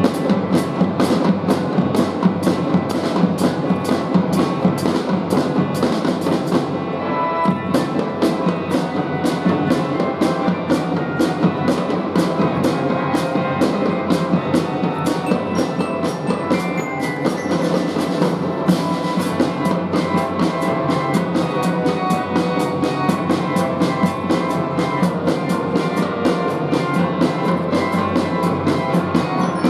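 Children's fife-and-drum band playing, with a steady beat of marching drums under melody instruments and glockenspiel. The full band comes in loud suddenly at the start.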